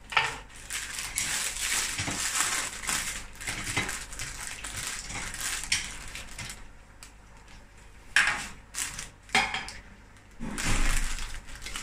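A plastic bag of fresh coriander crinkling and rustling as it is handled, with clinks of a steel pot and kitchen utensils. The noise comes in bursts, easing off past the middle and picking up again near the end.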